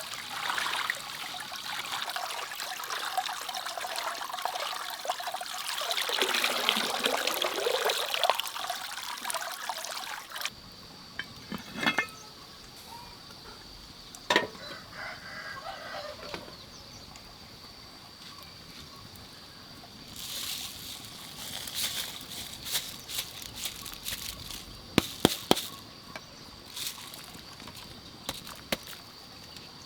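Water pouring and trickling for about ten seconds, then stopping abruptly. Scattered sharp knocks and clicks follow, with a faint steady high tone underneath.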